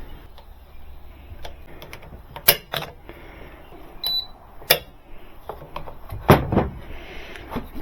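Jump starter's jumper cable and clamps being handled and connected: a few sharp clicks and clacks, the loudest about two and a half, five and six and a half seconds in, with a brief high beep near the middle.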